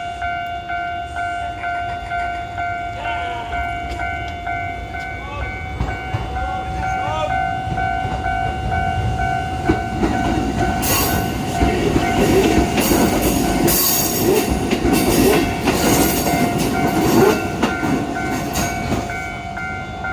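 Japanese level-crossing warning bell ringing with a steady, evenly repeating two-tone clang, then cutting off at the end. In the middle a train passes through the crossing, its wheels rumbling and clicking over the rail joints.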